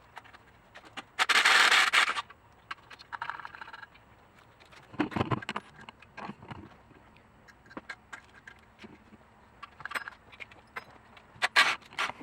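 Scraping and clicks from rear disc brake parts being worked on by hand, with a loud hiss about a second long near the start.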